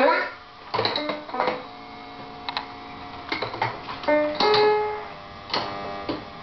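Toy electronic keyboard played by a toddler pressing keys at random: about nine single notes at uneven intervals, each starting sharply and ringing on with a steady electronic tone that fades. A child's voice trails off just at the start.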